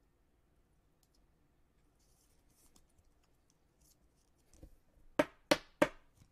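Faint rustling and clicking of trading cards and packaging being handled, then three sharp knocks in quick succession, about a third of a second apart, near the end.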